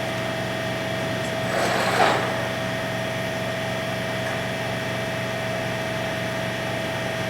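Devlieg 43K-72 jig mill running under its CNC control while it positions its axes for a cut: a steady machine hum with a constant high tone, and a short rush of noise about two seconds in.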